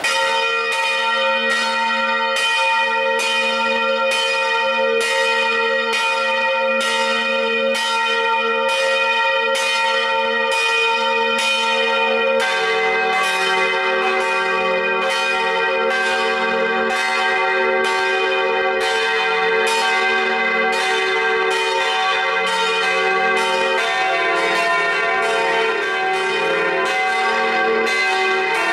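Full peal of a six-bell church ring, tuned As° c' es' f' g' b', heard from inside the belfry: swinging bronze bells strike in quick overlapping succession, about two strokes a second, and their ringing blends. Deeper bells join in about twelve seconds in and again a few seconds before the end.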